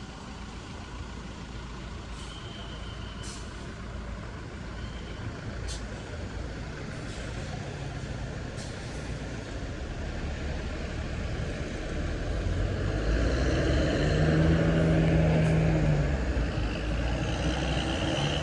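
Steady low traffic rumble with a few sharp clicks, then a heavy vehicle's engine growing louder from about twelve seconds in and running loudest a few seconds later.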